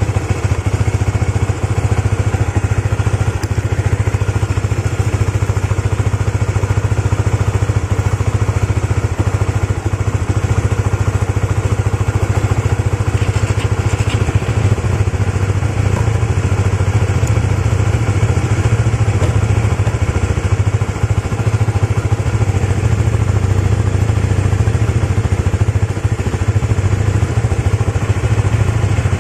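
Motorcycle engine idling steadily with an even low hum, freshly started at the first press on a healthy battery.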